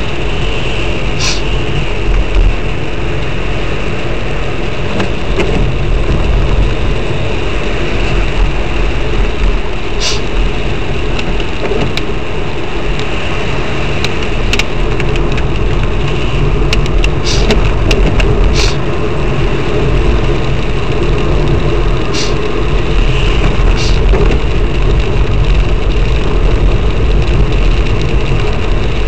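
Car driving on a wet road, heard from inside the cabin: a steady engine rumble and tyre noise, with a few sharp clicks here and there.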